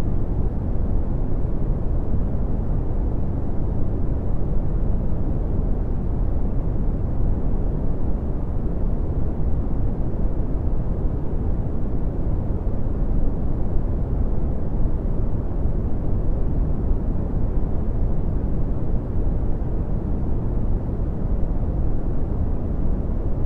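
Red (Brownian) noise: a steady, deep rumbling hiss with most of its energy in the bass, falling away toward the highs, unchanging throughout.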